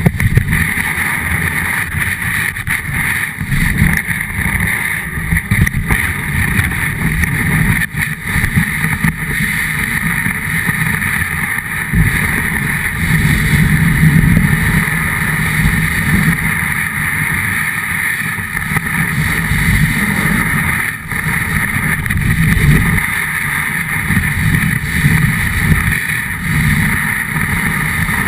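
Snowboard sliding and carving over packed snow, heard through a camera mounted on the board: a continuous scraping rumble that swells and eases with the turns, with some wind noise on the microphone.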